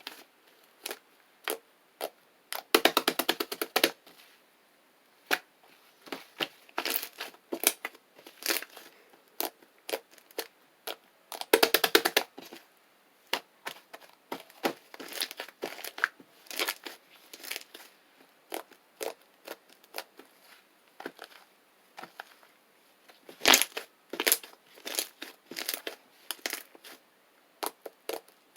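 Shaving-foam slime being squeezed and poked by hand, making scattered sticky clicks and pops, with denser runs of crackling about three seconds in, around twelve seconds and near twenty-four seconds.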